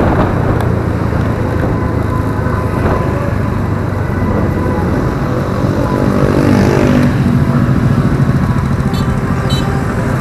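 A Honda scooter's engine running under way, with steady road and wind noise, as it rides among other motorbikes in traffic. An engine tone swells and fades about six seconds in.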